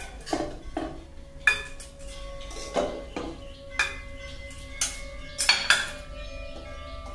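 A stainless steel spatula clinking against a steel pan and small steel lunch-box containers as rice is scooped and packed: about eight irregular knocks, some leaving a short metallic ring.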